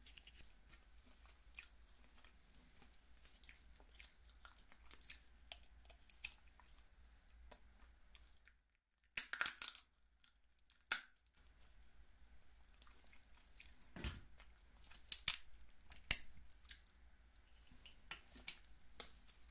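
Close-miked eating of steamed snow crab: scattered wet chewing and mouth clicks, with a few louder crackles around the middle and in the second half.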